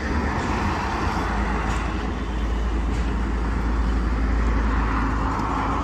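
Road traffic: cars, among them a taxi, driving past on a paved road. Their tyre and engine noise swells and fades twice over a steady low rumble.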